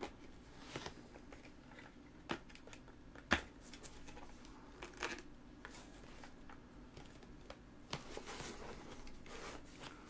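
Handling noise from a Western Digital external hard-drive enclosure being turned over and pressed on by hand: faint scattered clicks and taps, with one sharper knock about three seconds in, and light rustling near the end.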